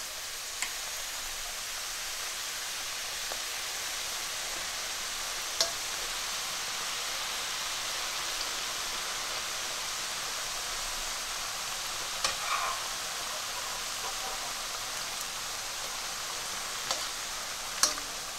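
Semolina puri (golgappa) shells deep-frying in a wok of hot oil, a steady sizzle throughout. A few sharp clicks, the metal slotted spoon knocking the wok as the shells are turned and lifted out.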